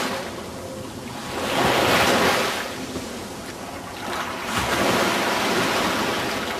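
Small waves breaking on a sandy shore and washing up the beach, the surf swelling and ebbing about every two to three seconds.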